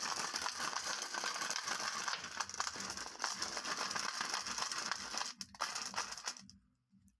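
Glass marbles rattling and clicking against each other and the walls of a plastic bottle as it is shaken and tilted by hand. The dense clatter stops about six and a half seconds in.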